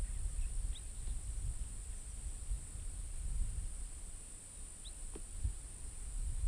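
Quiet marsh ambience on open water: a low wind rumble on the microphone under a steady high hiss, with two faint short rising bird chirps, one about a second in and one near the end.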